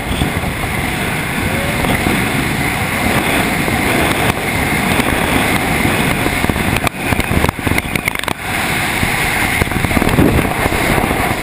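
Loud, steady rush of freefall wind blasting over a camera microphone, with brief flutters and dropouts about seven to eight and a half seconds in.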